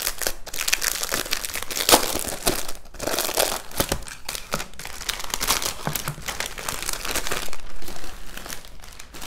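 Clear plastic wrapping crinkling and rustling as boxed cuticle nippers are unwrapped and handled, with many small crackles and one louder crackle about two seconds in.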